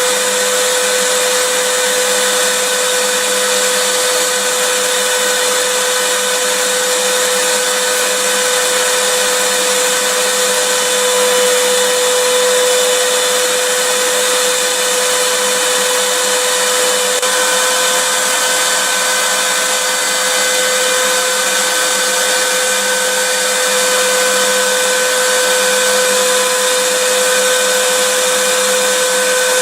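Vacuum cleaner running continuously: a steady motor whine over even rushing air noise, with no change in speed.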